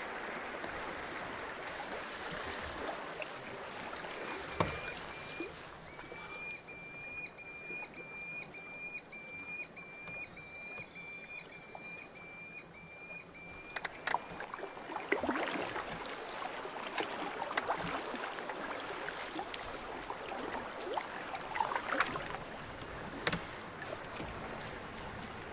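Canoe on open lake water: paddle strokes and small splashes against the hull. For about twelve seconds in the first half a high squeak repeats about twice a second.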